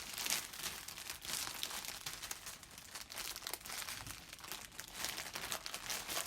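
Packaging crinkling and rustling in an irregular stream of crackles as it is handled and pulled open by hand.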